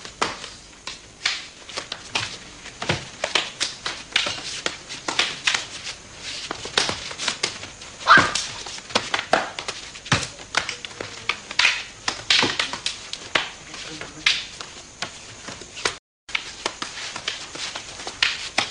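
Rattan eskrima sticks clacking against each other and against padded armor in full-contact sparring: quick, uneven strikes, often several a second. The sound drops out briefly about sixteen seconds in.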